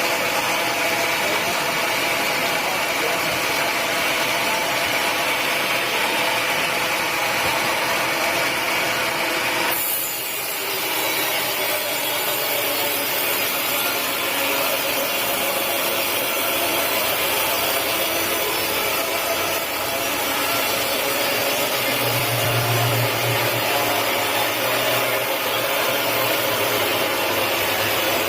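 Sawmill saw cutting through a teak log: a steady, noisy cutting sound with a whine in it, which shifts briefly about ten seconds in. A low hum joins in the second half.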